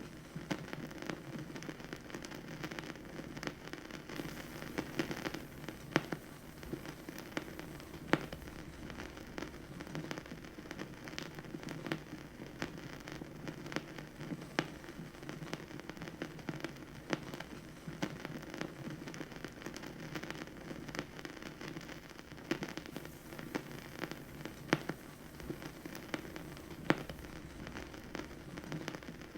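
Vinyl record surface noise: a steady hiss full of irregular small crackles, with a few louder pops standing out.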